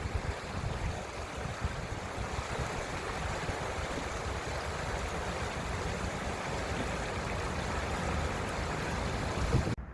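River water flowing, a steady rushing hiss, which cuts off suddenly near the end.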